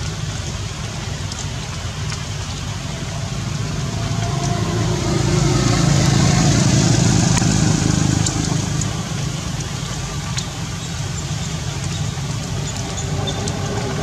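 A low engine rumble, like a motor vehicle going by, that swells about four seconds in and fades after about eight, over steady background noise.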